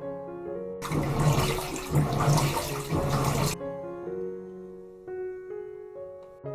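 Water rushing loudly for about three seconds, starting and stopping abruptly, over background piano music.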